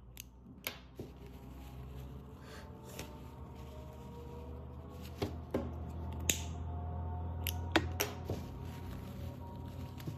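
Handling noise from hands working with a cable and lighter: about ten sharp clicks and taps, scattered unevenly, over a steady low hum.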